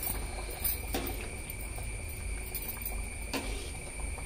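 Quail gravy boiling in an aluminium kadai, cooked through: soft bubbling over a steady low rumble, with a few light clicks.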